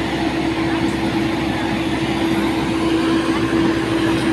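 Steady drone of engines and ground equipment running on an airport apron, with one constant low hum and no change in pitch or level.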